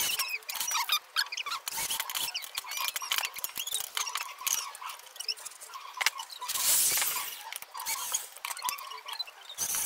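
Cordless drill/driver running in short spurts as it drives screws through white metal folding brackets into plywood, with knocks from the board being handled. Many short, high-pitched squeaks and chirps run throughout.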